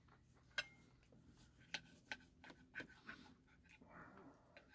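Faint, light clicks and scrapes of a knife and fork on a metal plate while steak is cut, coming irregularly every half second or so.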